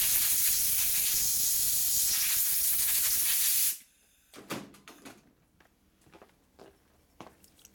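Compressed air hissing steadily from a blow gun as a small part of a nitrous oxide transfer pump is blown off, cutting off sharply after about three and a half seconds. A few faint clicks of small parts being handled follow.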